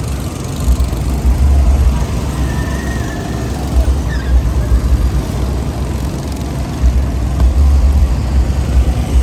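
Go-kart engines running as the karts circle the track, under a loud, uneven low rumble that swells and fades every second or two.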